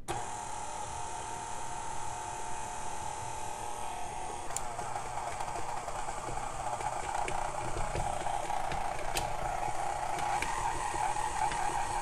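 KitchenAid tilt-head stand mixer running, its flat beater mixing flour into cookie dough in a glass bowl: a steady motor whine that gets a little louder partway through, with a few faint clicks.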